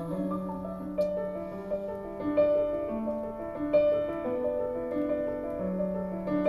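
Recorded music with piano chords and held notes between sung lines, played back through Yamaha NS-3000 bookshelf speakers.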